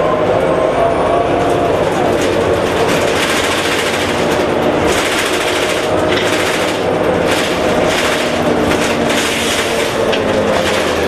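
Cabin sound of a 2003 New Flyer D60HF articulated bus under way: the Allison B500R automatic transmission whines behind the Detroit Diesel Series 50 engine, the whine shifting in pitch as the bus speeds up and slows, over steady clattering and rattling of the body and fittings.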